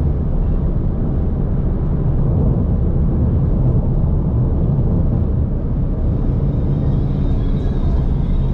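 Steady low road rumble of a car travelling at freeway speed, tyre and engine noise.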